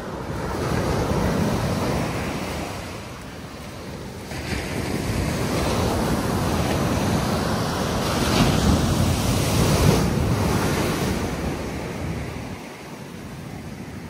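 Ocean surf breaking on a sandy beach, with wind rushing over the microphone; the noise swells and fades, loudest in the middle.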